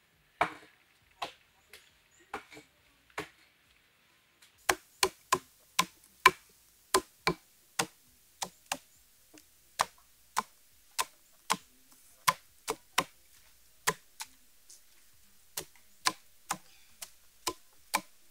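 Sharp wooden knocks of a stick striking cashews, a few scattered at first, then a steady run of about two a second from about four and a half seconds in.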